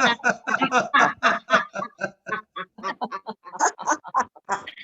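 Several people laughing deliberately together over video-call microphones, in quick repeated 'ha-ha' pulses from the belly, as a laughter exercise.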